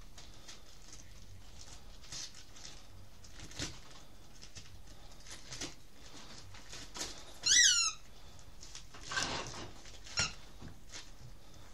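Dog chewing and tugging wrapping paper off a small present, with scattered crinkles and rustles of paper. Partway through there is one loud, short squeak with a falling pitch.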